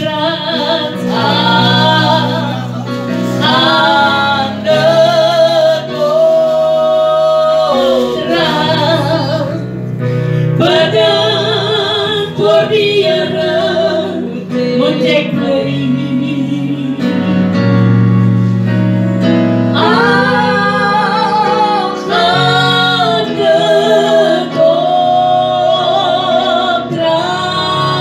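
A woman singing an old African gospel song into a microphone, with electronic keyboard accompaniment holding sustained chords beneath her long, held melody notes.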